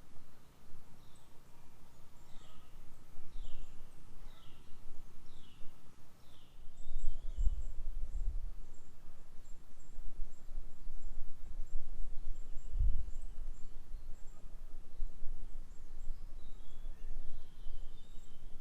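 A songbird repeating a short falling call note, about one a second, for the first six seconds or so, then fainter high chirps. Low rumbles come and go underneath, the loudest about seven and a half and thirteen seconds in.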